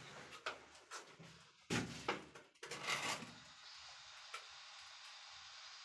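A few knocks and scrapes from a tiler handling ceramic wall tile and tools, bunched between about a second and a half and three seconds in, followed by a faint steady hiss.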